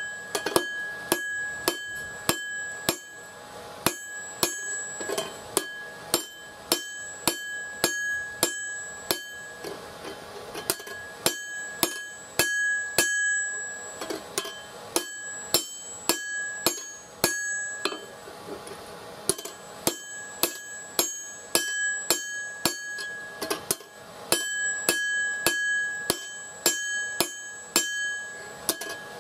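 Hand hammer striking a hot steel axe blank on an anvil, about two blows a second, each with a clear ringing of the anvil. The hammering pauses briefly twice.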